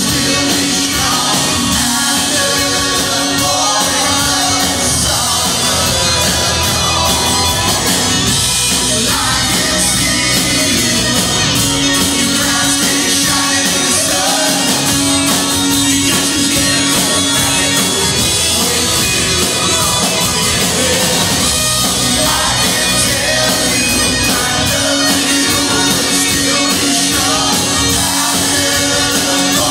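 Live rock band playing, with acoustic guitar, a second guitar and a man singing into a microphone. The music is loud and steady, with long held notes at several points.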